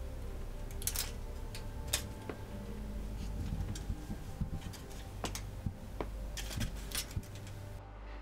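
Aluminium foil on a wall crinkling and crackling as fingers press into it and pull it apart, in irregular sharp crackles over a low steady hum.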